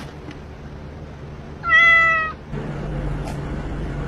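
A cat meows once, a single call of about half a second, level in pitch.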